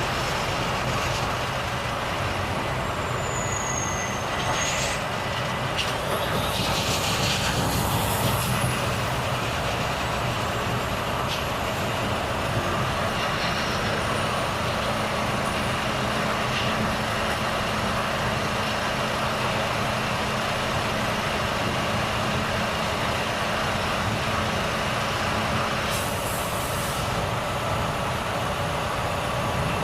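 Volvo FH truck's diesel engine running steadily on the move, with a couple of short, high hisses of air, one about a quarter of the way in and one near the end.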